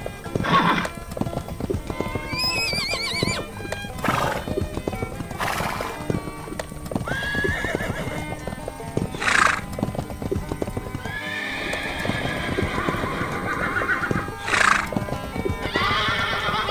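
Horse hooves clip-clopping in a fast, steady patter, with several whinnies that rise and fall in pitch, over background music.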